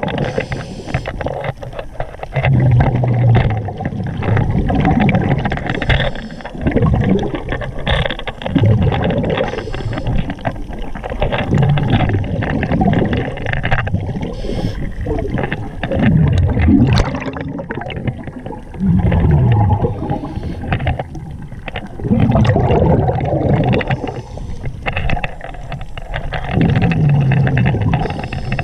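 A diver breathing underwater through a regulator. Each breath cycle brings a low falling tone and a rush of gurgling exhaled bubbles, repeating about every three to four seconds.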